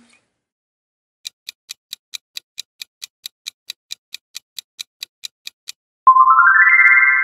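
Quiz countdown-timer sound effect: clock-like ticking at about four to five ticks a second for roughly four seconds. As the timer runs out it ends in a loud, bright chime that rises quickly in pitch and rings on.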